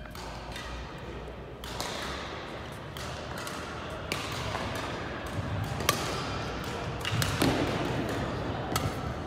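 Badminton rackets striking shuttlecocks: a string of sharp pops at irregular intervals, mixed with shoe squeaks and footfalls on the court.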